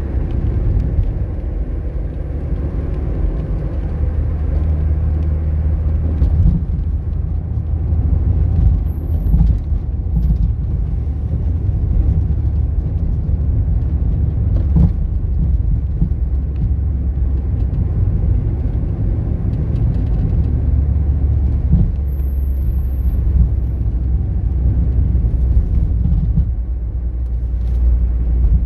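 A car driving along a road: steady low rumble of engine and tyre noise.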